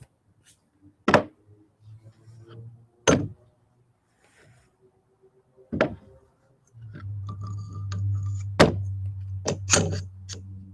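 A ball bearing being tapped onto a 4140 steel drive shaft: sharp knocks a couple of seconds apart, then three in quick succession near the end. A steady low hum sets in about two-thirds of the way through.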